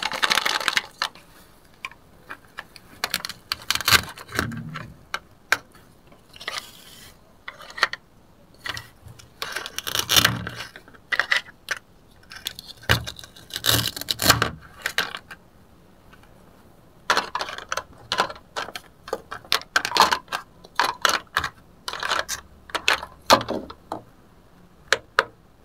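Plastic toy food pieces clicking and clattering in irregular clusters as they are handled, cut apart with a plastic toy knife on a plastic cutting board, and set down.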